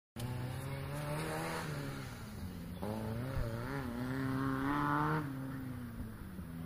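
Off-road 4x4's engine revving, its pitch rising and falling as the throttle is worked, climbing highest about four to five seconds in before dropping back.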